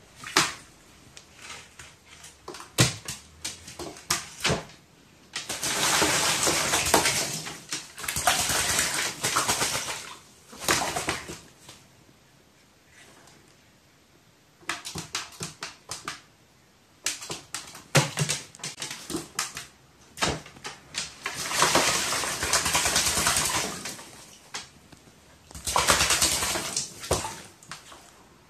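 A crow bathing, beating its wings in water: three long spells of splashing, with scattered sharp taps and clicks in between.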